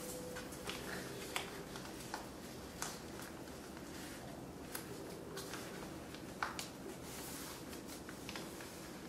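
Thick paper being folded and creased by hand, with scattered soft crinkles and taps as the folds are pressed flat, over a faint steady hum.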